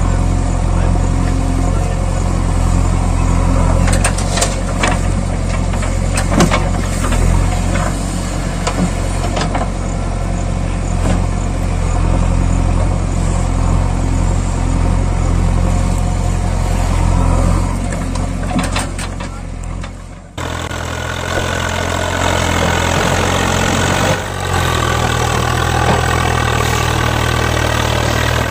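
Engine idling steadily, a recorded engine sound effect laid over the play with plastic toy machines. About two-thirds of the way through it cuts abruptly to a different engine idling at a steady pitch.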